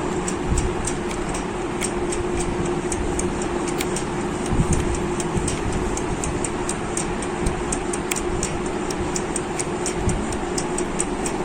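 Steady mechanical running noise with a constant hum and rapid, even ticking a few times a second.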